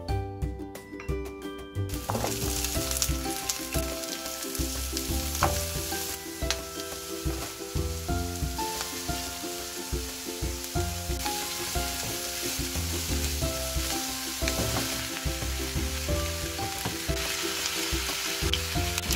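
Sliced sundae (Korean blood sausage) and vegetables stir-frying in an oiled frying pan, a steady sizzle that starts about two seconds in. Background music plays throughout.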